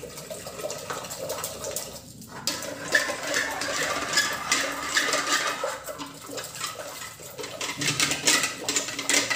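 A wooden dal churner spun back and forth between the palms inside an aluminium pressure cooker, sloshing through thick cooked horsegram dal to mash it smooth. Rapid clicks and rattles run through it, growing busier about two and a half seconds in.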